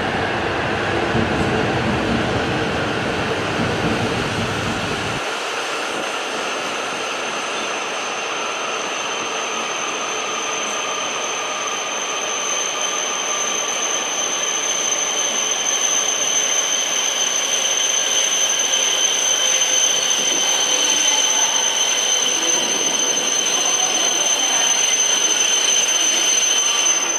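E5-series and E6-series Shinkansen trainset moving slowly along the platform, its traction motor tones gently falling as it slows, over steady running noise and a high steady whine that grows stronger toward the end.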